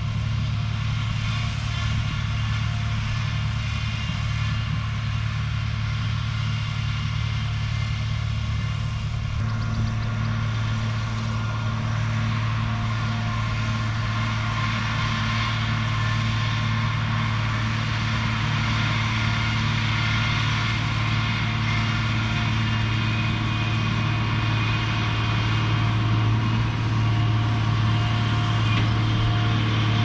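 A vehicle engine running at a steady speed with a constant low note; its sound changes slightly about nine seconds in and grows a little louder near the end.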